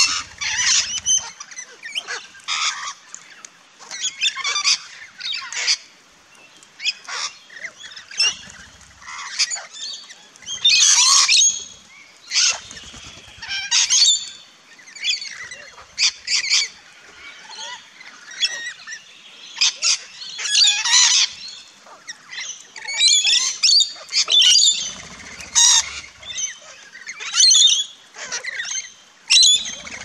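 A flock of parrots, rainbow lorikeets and crimson rosellas, squawking at a feeder: many short, shrill calls come in clusters and overlap, loudest about a third and two-thirds of the way through. A few soft low flutters of wingbeats come near the start and again later.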